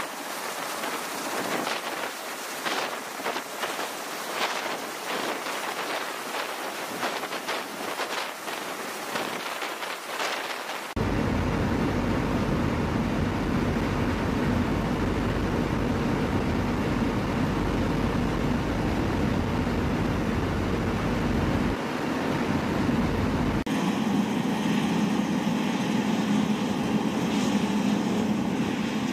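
MV-22 Osprey tiltrotor noise across edited cuts. First comes a gusty rush of rotor and turbine noise out on the flight line. About eleven seconds in it cuts suddenly to the loud, steady, deep drone inside the cabin in flight. Near the end it shifts to a steadier engine hum out on the ramp.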